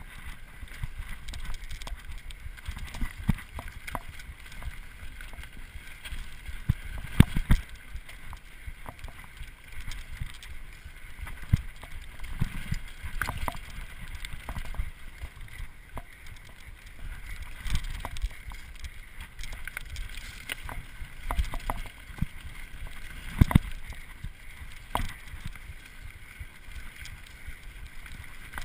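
Mountain bike ridden over a rough dirt trail: a continuous low rumble of tyres and wind on the microphone, broken by frequent knocks and rattles as the bike jolts over bumps. The hardest knocks come about seven seconds in and again about twenty-three seconds in.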